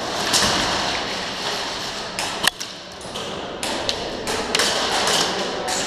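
Irregular sharp clicks and knocks over a steady hiss, from an airsoft game in progress: the wearer moving fast among gear and gunfire.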